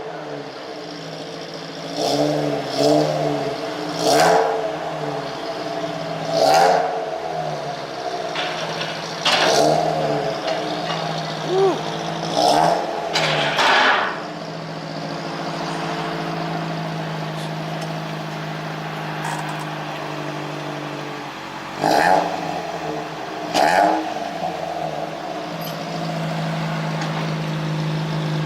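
2001 Ford Focus ZX3's four-cylinder engine idling through its aftermarket exhaust with a freshly fitted Cherry Bomb glasspack. It is blipped in short revs, about eight in the first half and two more after a quiet stretch of steady idle.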